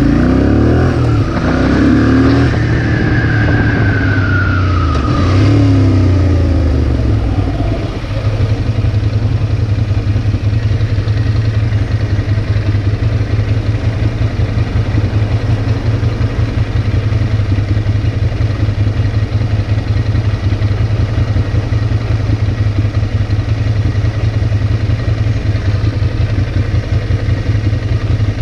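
Ducati Monster's V-twin engine with its revs falling and rising over the first several seconds as the bike slows to a stop, then idling steadily with a fast, even pulse from about eight seconds in.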